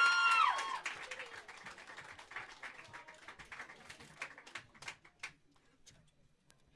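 Small audience applauding, with high-pitched cheers that stop about a second in; the clapping then thins to a few scattered claps and dies away.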